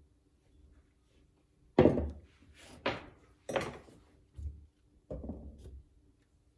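Five knocks and thumps, about a second apart; the first is the loudest and the last drags a little longer.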